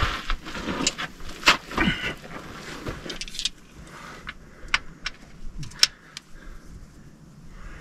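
Scuffing and rustling as someone gets under a Jeep on dirt ground, then a few separate sharp metallic clinks of hand tools (a socket and ratchet) being handled under the vehicle.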